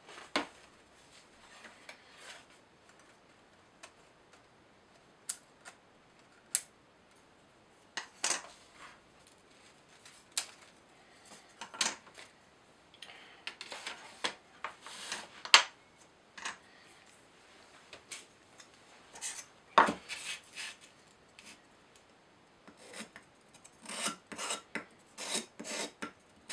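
Laser-cut plywood sheets and parts of a UGears wooden model kit handled on a table: scattered clicks, taps and rustling, with a few sharper knocks. Near the end comes a quick run of rubbing strokes as sandpaper smooths the burrs off a cut-out wooden disc.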